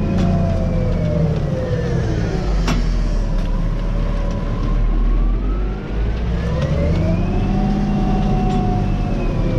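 Tractor diesel engine heard from inside the cab, working hard pulling a disc harrow through wet mud. Its pitch sags about two seconds in, climbs back from about six seconds and sags again near the end as the load drags the revs down. A sharp click about three seconds in.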